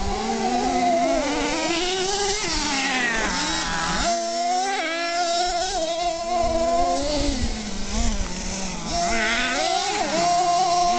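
Small nitro engine of a radio-controlled truck buzzing and revving, its pitch rising and falling repeatedly.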